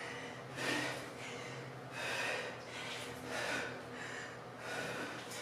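A woman breathing out hard in short bursts, one with each kettlebell swing, four times at about one every second and a half.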